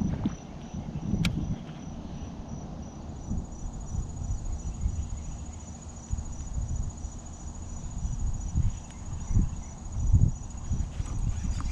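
Insects chirping steadily in a high-pitched, fast-pulsed trill, over uneven low rumbling; a single sharp click about a second in.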